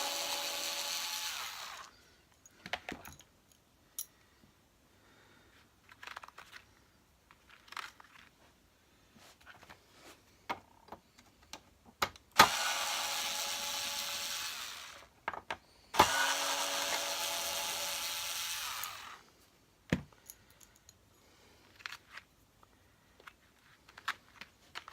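Power screwdriver whirring in three runs of about three seconds each, driving out screws, with short clicks and taps of parts and screws being handled in between.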